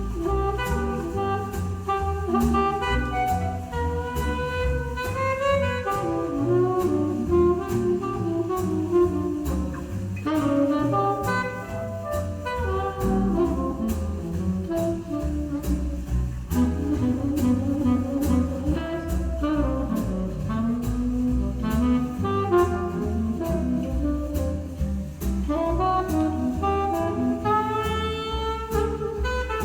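Instrumental jazz with a saxophone lead over double bass and steady cymbal ticks, played back through a hi-fi system's bookshelf speakers and subwoofer.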